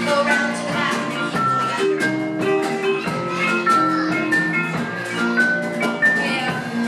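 Live rock band playing an instrumental passage of an island-flavoured children's song: electric guitar, bass, keyboard and a small strummed string instrument over a steady drum beat, with no singing.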